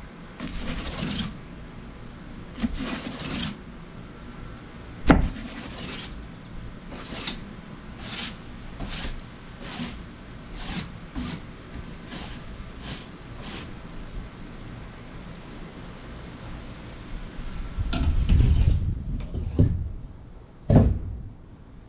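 Push broom sweeping a wooden deck: repeated swishing strokes of the bristles across the boards, about one a second. A sharp knock about five seconds in is the loudest sound, and there are low thumps and another knock near the end.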